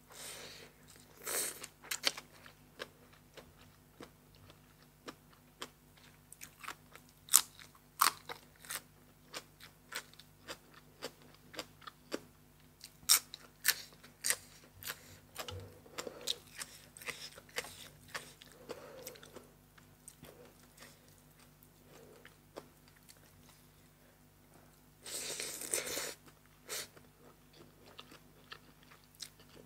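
A person biting and chewing crisp raw food close to the microphone, with sharp irregular crunches every second or so. About 25 seconds in there is a louder noisy burst lasting about a second.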